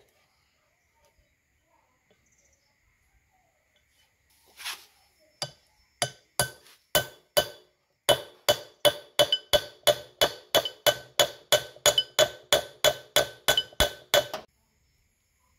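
Hammer tapping a replacement wheel bolt into the hub flange of a Perodua Viva rear brake drum, seating it, metal on metal with a ringing note on each strike. A knock and a few spaced taps come first, then a quick, even run of about three strikes a second for some six seconds.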